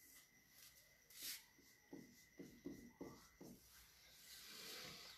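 Faint marker pen strokes on a whiteboard: a run of short scratches and rubs, over a faint steady high tone.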